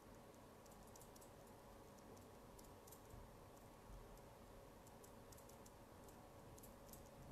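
Near silence: room tone with faint, irregular clicks scattered throughout.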